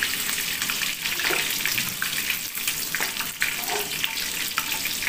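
Kitchen tap running steadily, water splashing into the sink.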